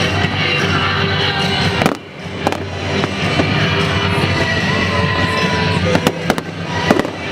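Fireworks shells bursting in sharp bangs, once about two seconds in and in a cluster of several near the end, over steady music.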